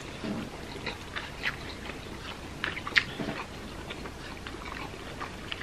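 Chewing and eating sounds: scattered small clicks and ticks of mouth and food, with a couple of soft low murmurs.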